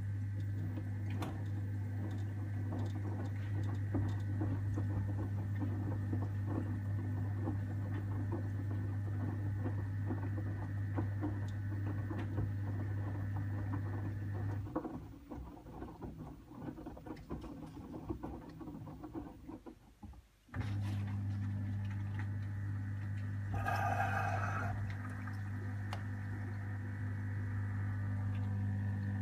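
LG TurboWash front-loading washing machine tumbling a cotton load in sudsy water during its cool-down stage: the drum motor hums steadily under the pattering of water and clothes. The hum stops about halfway through for several seconds while the drum pauses, then starts again, with a short louder sound a few seconds after the restart.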